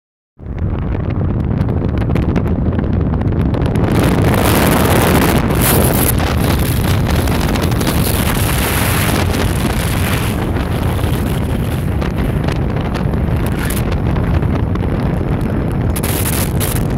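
Wind rushing over the microphone from a moving car, a loud steady rush with frequent crackling buffets, over the car's road noise.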